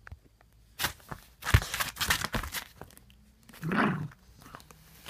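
A Shiba Inu scuffling and pawing at a feather cat-teaser toy on a tatami mat, with scratchy rustling and a sharp thump about a second and a half in. A short voice-like sound comes near four seconds in.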